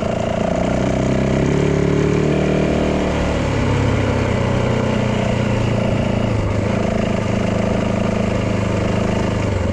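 Yamaha dirt bike engine running while being ridden. It picks up a little in pitch, eases off about three seconds in, then holds a steady pace.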